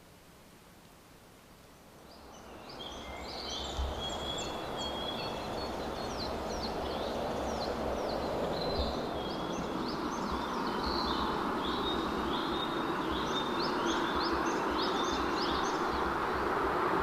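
Small birds chirping and singing in quick repeated high notes over a steady background rush, fading in about two seconds in and growing louder.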